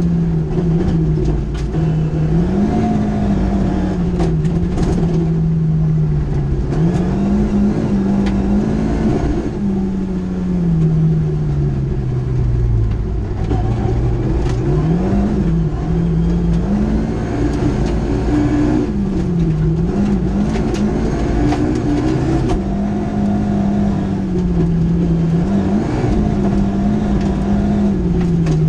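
Rally car engine at full effort from inside the cockpit, its note climbing and then dropping again and again with gear changes and lifts off the throttle. Gravel from the stage road clicks and knocks against the car throughout.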